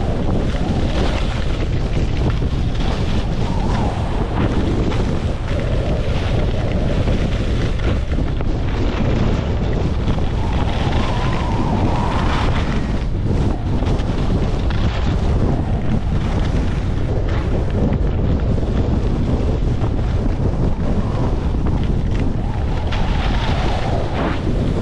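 Heavy wind noise buffeting a GoPro's microphone while skiing downhill at about 40 to 50 km/h: a steady low rumble, with the hiss of skis on packed snow swelling at times.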